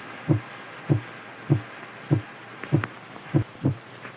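A heartbeat beating steadily at roughly 100 beats a minute, deep low thuds about every 0.6 s, with a few beats doubled a little before three seconds in, over a faint hiss.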